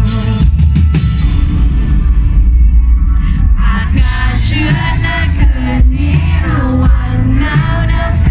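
Live pop-rock band playing loud through a concert PA: heavy bass and drums with electric guitar and keyboard, the lead vocal singing from about three and a half seconds in.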